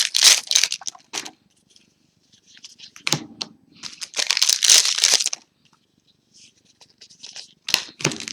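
Foil booster-pack wrappers crinkling and tearing open in several short bursts with pauses between, as trading-card packs are ripped open and handled.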